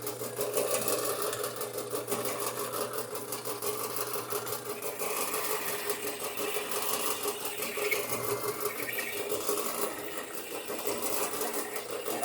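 Drill press running, a step bit cutting into quarter-inch steel channel iron: a steady motor hum with a fast, even chatter from the bit.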